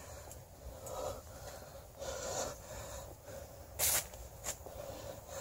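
A tired person's heavy breathing while hiking uphill: a few soft breaths, with one short, loud burst about four seconds in.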